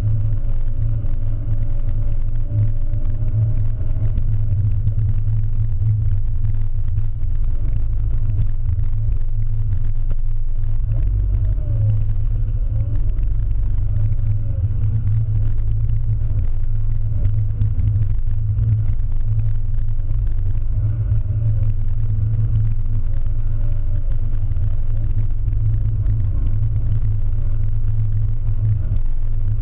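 Car driving slowly, heard from inside the cabin: a steady deep rumble of engine and road noise, with a faint engine note that wavers in pitch now and then.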